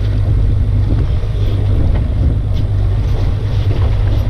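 Boat's outboard motor running with a steady low hum, under wind buffeting the microphone and water splashing.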